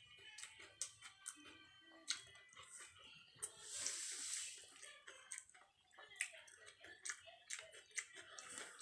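Quiet eating sounds: a crispy fried noodle-and-egg crust being chewed, with many small sharp clicks throughout and a short hiss about four seconds in.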